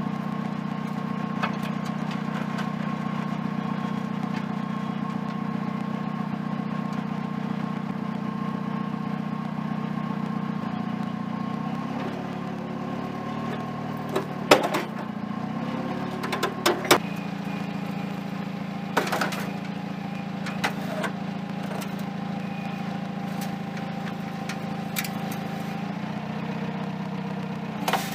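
Truck engine running steadily. Between about 12 and 17 seconds in its pitch shifts, with a few sharp knocks, and it then settles to a steady run again.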